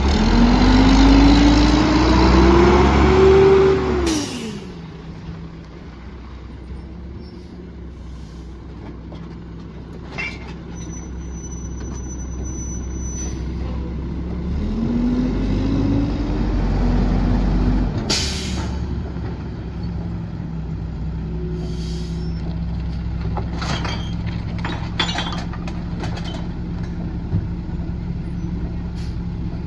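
Mack MR garbage truck's diesel engine revving as it pulls up, then a burst of air brake hiss about four seconds in. Later the engine revs briefly again and settles to a steady idle, with another hiss and a few knocks and thuds as bags and cans go into the rear hopper.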